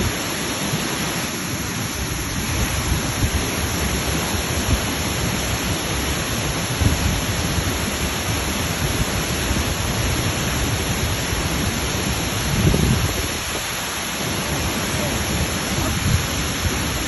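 Waterfall: a steady rush of falling water with a deep, uneven rumble underneath.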